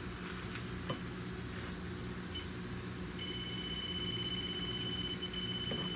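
Handheld infrared refrigerant leak detector sounding its alert: a short blip about two seconds in, then a steady, high-pitched rapid beeping tone from about three seconds in, signalling refrigerant picked up near the AC hose fitting. A low steady hum sits underneath.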